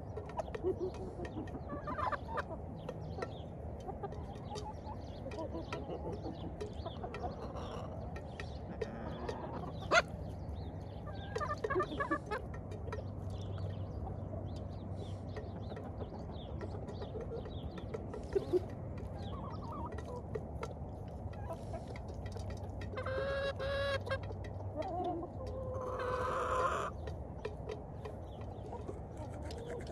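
A flock of chickens clucking softly as they forage, with scattered short calls and two longer pitched calls about three-quarters of the way through. A single sharp click about ten seconds in.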